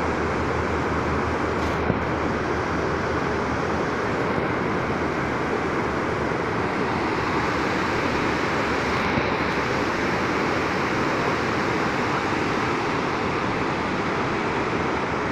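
Water rushing over shallow rocks and pouring over a low dam's spillway: a steady, even rush.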